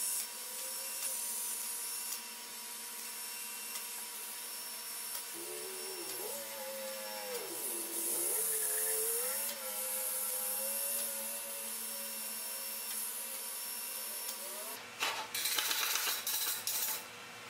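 TIG welding arc on stainless steel: a steady high hiss with a faint whine that wavers up and down in pitch in the middle. Near the end comes a brief burst of louder, rougher noise.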